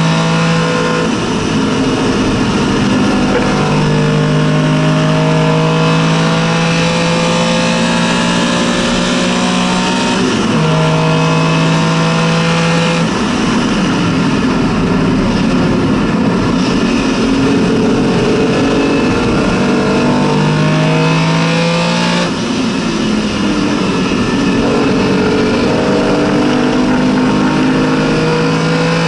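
Porsche 914/6 GT's air-cooled flat-six racing engine heard from inside the cabin on track, its pitch climbing between gear changes and dropping at each shift, with changes about ten, thirteen and twenty-two seconds in.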